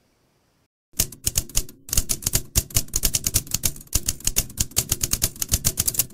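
Rapid typewriter-style key clatter, a typing sound effect of about eight to ten keystrokes a second, starting about a second in after a moment of silence, with a brief pause shortly after.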